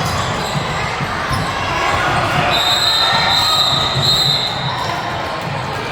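Basketball bouncing on a gym floor in irregular thuds over a murmur of crowd noise in a large hall. A high steady tone is held for just under two seconds in the middle.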